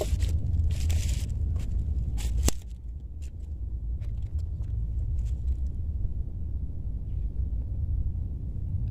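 Wind rumbling on the microphone, a steady uneven low buffeting. A few rustles and clicks in the first two and a half seconds, the sharpest about two and a half seconds in.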